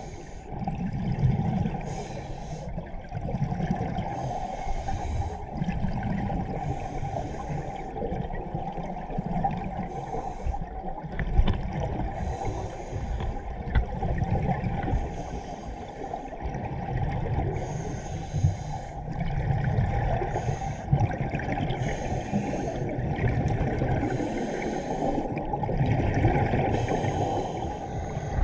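Scuba regulator breathing recorded underwater: a hiss on each inhale, then a low bubbling rumble as the exhaled air vents, a breath every few seconds.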